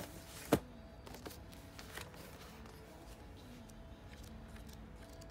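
Paper handling: a book is set down with a sharp slap about half a second in, followed by softer rustles and ticks as the pages of a thick paperback art book are leafed through.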